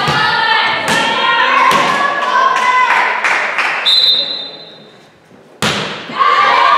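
Players and spectators shouting and chanting in a gym, then a referee's whistle blast about four seconds in to signal the serve. After a brief hush, a hand strikes a volleyball once on the serve, and the shouting starts up again.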